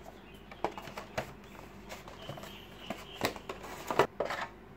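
A cardboard headphone box and its molded insert tray being handled as the tray is lifted out: scattered taps, scrapes and rustles of cardboard, with a faint short squeak midway and the loudest handling in a cluster near the end.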